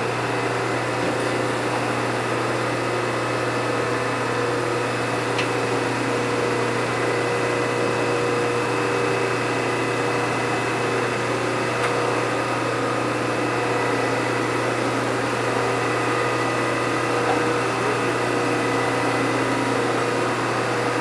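Hydraulic surface grinder with a 1x72 belt-grinder conversion running steadily, its belt and contact wheel spinning clear of the work between grinding passes, a constant hum and whine. A faint click or two is heard along the way.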